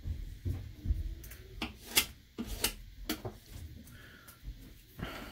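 Handling noise of pottery tools being picked up and set down on a wooden worktable: soft thumps and a few sharp clicks and taps, the loudest about two seconds in.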